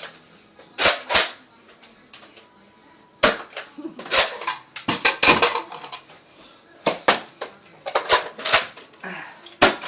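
Nerf blasters firing and foam darts striking: a dozen or so sharp clacks and pops at irregular intervals, some in quick pairs.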